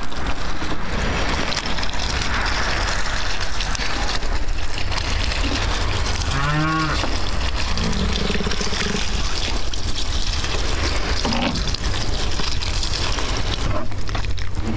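Cattle mooing: one clear moo about six seconds in and a lower call shortly after, over a steady rushing noise.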